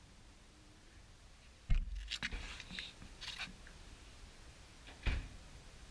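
A dull thump about two seconds in, followed by a second or so of light clicks and scrapes, then another thump near the end, against a quiet background.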